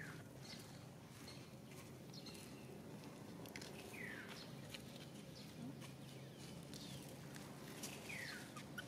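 Faint outdoor ambience with two short, high falling chirps from an animal, about four seconds apart, and scattered soft clicks.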